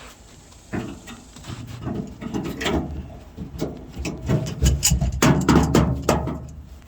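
Hand working inside a pickup truck's door shell at the lock linkage, giving irregular metallic clicks, knocks and scraping as the rusty lock-rod clip is felt for and worked.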